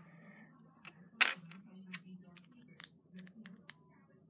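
LEGO pieces clicking and tapping as they are handled and pressed together: a run of small, sharp plastic clicks, the loudest a little over a second in.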